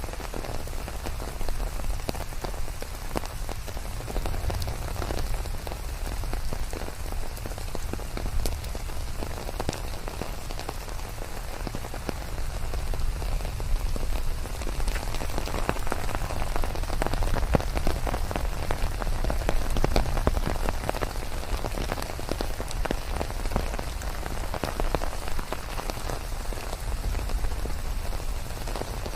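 Steady rain with many separate drop hits over a deep low rumble, mixed with white noise, growing a little heavier midway.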